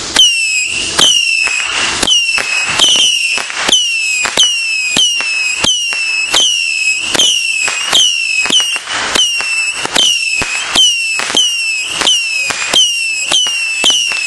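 Fireworks whistling-missile battery firing shot after shot, about two a second: each shot is a sharp pop followed by a short high whistle that falls in pitch.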